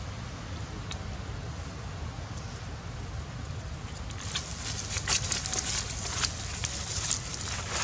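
Dry leaves and grass crackling and rustling, with a run of sharp irregular crackles starting about halfway in, over a steady low wind rumble on the microphone.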